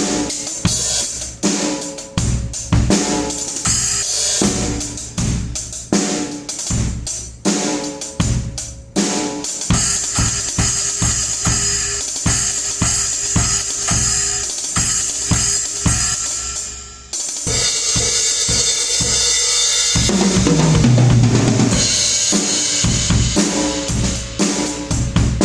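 PDP M5 drum kit being played, with bass drum, snare, hi-hat and cymbals in a steady groove; about two-thirds of the way through the hits give way to a few seconds of continuous cymbal wash over a rolling low drum pattern before the beat resumes.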